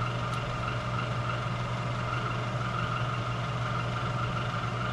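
Steady hum of a running electric motor or shop machine, even in level, with one faint click about a third of a second in.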